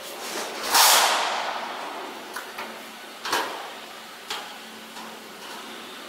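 Thin sheet metal sliding and scraping as it is fed and positioned along a seam-locking machine, with a loud swish that fades about a second in and sharp metallic clicks around three and four seconds in, over a faint steady low hum.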